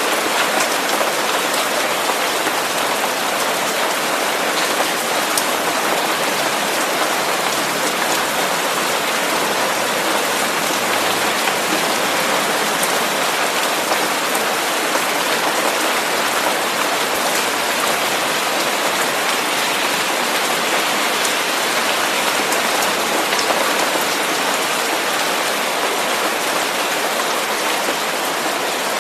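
Steady hiss of rain with a fine patter of drops.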